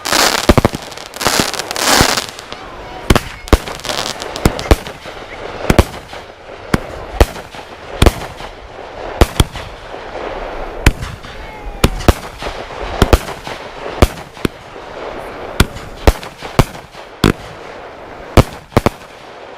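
Legend Matrix Power and Black Cat Blowout firework cakes firing together: dense crackling for the first couple of seconds, then a string of sharp bangs, about one or two a second, over continuous crackle.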